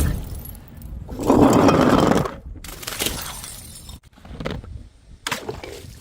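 Glass bottles smashing: a sharp break right at the start, a longer crunching break about a second in, then a few smaller cracks and clinks of glass.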